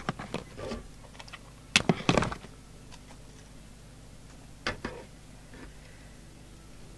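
Knocks and clicks of bench handling as a handheld component analyser is brought over and set down on the SWR meter's case. Scattered small clicks, the loudest double knock about two seconds in and another near five seconds.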